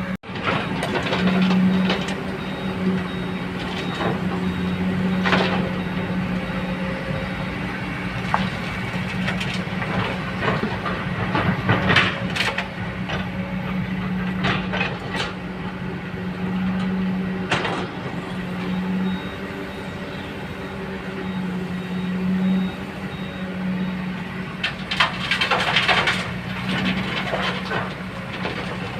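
Hydraulic excavator's diesel engine running steadily under load, with the bucket clanking and scraping now and then, loudest about twelve seconds in and again near the end.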